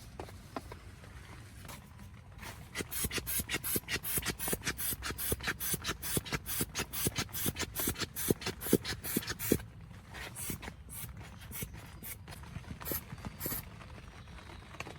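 Rapid, rhythmic scraping strokes, about four a second, starting about two seconds in and stopping near ten seconds, followed by a few slower, scattered strokes.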